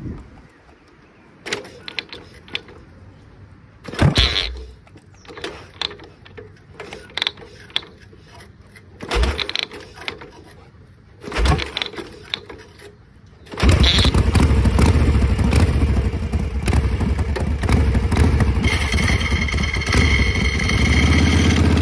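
1969 generator Shovelhead Harley-Davidson V-twin being kick-started: several kicks turn it over with a mechanical clatter without it catching, then about 14 seconds in it fires and keeps running steadily, its pitch rising near the end.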